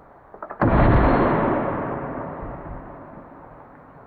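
Ramset powder-actuated nail gun firing on a green .22 blank, a single sharp bang about half a second in that dies away slowly over about three seconds, as it drives a nail through a soft body-armor panel into plywood.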